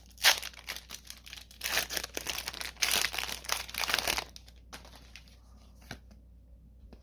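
A Magic: The Gathering booster pack wrapper being torn open and crinkled, a run of crackling rustles for about four seconds, then only faint handling sounds.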